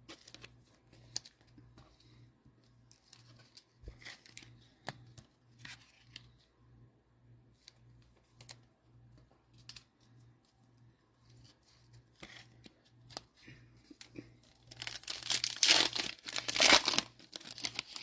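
A foil trading-card pack being torn open and crinkled by hand, loud for a few seconds near the end, after light rustles and clicks of cards and wrappers being handled.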